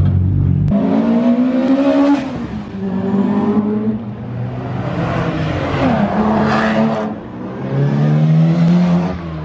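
Rally car engines revving hard as the cars accelerate past. The engine pitch climbs and drops several times with the gear changes, and a second car comes through near the end.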